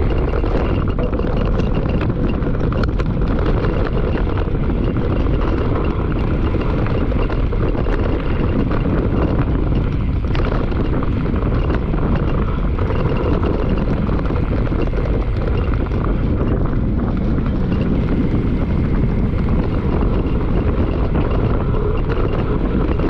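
Mountain bike riding fast down a dirt forest trail: a steady rumble of wind buffeting the microphone and tyres running over dirt, with frequent small clicks and rattles from the bike over rough ground.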